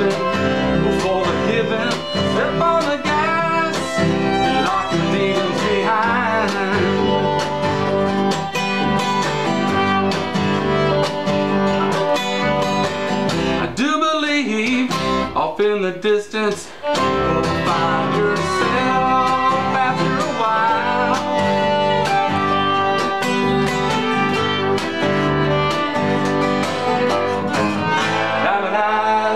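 Bluegrass-style acoustic string band playing an instrumental passage: acoustic guitar and fiddle, with mandolin and upright bass. About halfway through the lower instruments drop out for a few seconds while the fiddle carries on.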